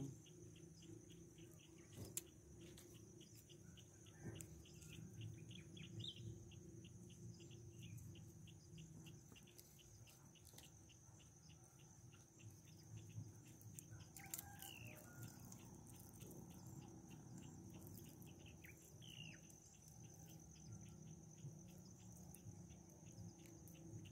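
Faint hilltop ambience: an insect pulsing quickly and evenly, with a high steady tone above it. A few short bird calls come through, the clearest about midway.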